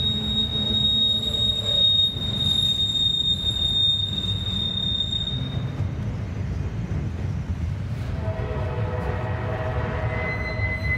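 Double-stack intermodal train of container well cars rolling past at close range: a steady low rumble of wheels on rail. A high, steady wheel squeal sounds for about the first half, and other tones, from another squealing wheel or a distant horn, come in near the end.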